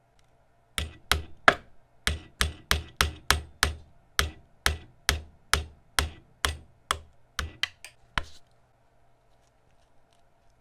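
A hammer striking repeatedly, about twenty sharp blows at two to three a second, stopping a little past eight seconds in.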